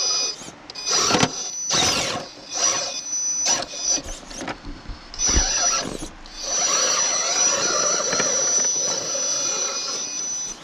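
Electric drivetrain of a 1:10 scale RC rock crawler whining in short stop-start throttle bursts as it crawls over rock. About six seconds in it settles into one steady high-pitched whine that lasts about four seconds.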